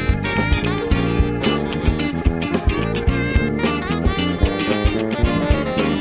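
A jazz-funk band playing live, electric guitar to the fore over bass and a steady drum-kit beat.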